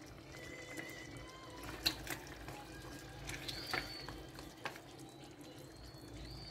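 Pot of vegetables and chicken in sauce simmering quietly, with a few light clicks of a metal spoon against the pot as sauce is pushed off it.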